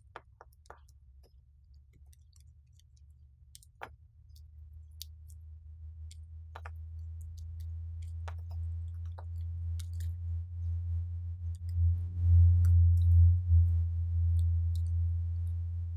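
Scattered light clicks and scrapes of tools working on a power-supply circuit board, over a low electrical hum that builds steadily through the second half and is loudest shortly before the end.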